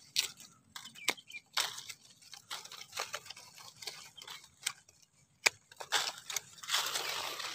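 Light crackling and rustling of dry leaves and twigs, with scattered sharp clicks about once a second, the loudest a little past the middle, and a longer rustle near the end.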